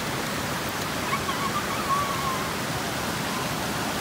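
Steady rush of a waterfall and its stream cascading over rock.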